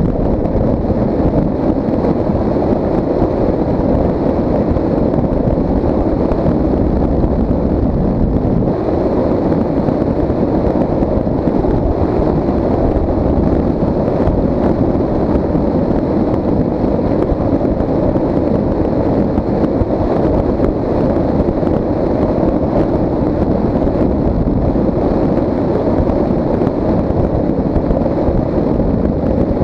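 Steady wind rush buffeting a camera microphone on the rear decklid of a Dodge Stealth at driving speed, with the car's road and tyre noise underneath.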